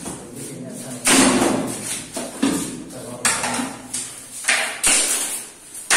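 Large PVC panels knocking and clattering as they are handled and set down, about six sharp knocks each ringing out briefly in an echoing room.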